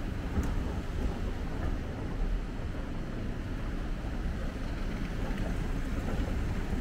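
Steady low rumbling background noise with no clear tone, heaviest in the bass.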